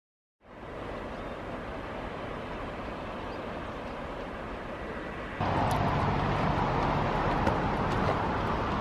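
Steady outdoor rumble with wind on the microphone. About five seconds in it steps up to a louder, steadier low rumble with a few faint ticks.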